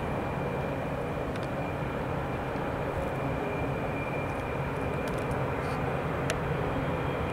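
Three BNSF diesel locomotives working upgrade with an autorack train, a steady low engine drone with a thin, steady high whine above it.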